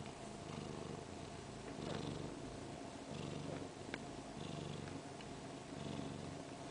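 Siberian mother cat purring steadily while her two-day-old kittens nurse, the purr swelling and easing with each breath about once a second. A small click sounds about four seconds in.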